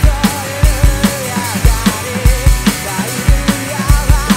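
Roland V-Drums electronic drum kit played with sticks, a fast driving rock beat of kick and snare hits, along with a rock backing track.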